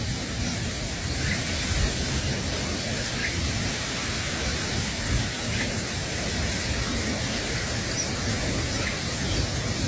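Steady outdoor rushing noise with a flickering low rumble, and faint short chirps now and then.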